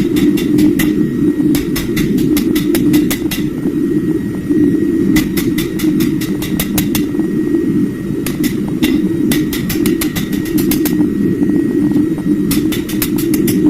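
Rapid runs of hammer blows on steel, about five or six strikes a second in groups of several with short pauses between, over a steady low roar.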